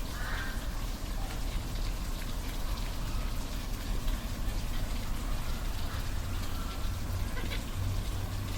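Waterfall: steady rushing, splashing water noise with a deep low rumble underneath.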